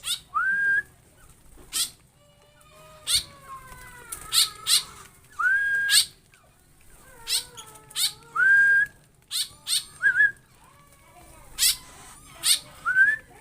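Several caged songbirds calling in an aviary: a whistled note that rises and then holds briefly, repeated about four times, among many short, sharp chips and calls.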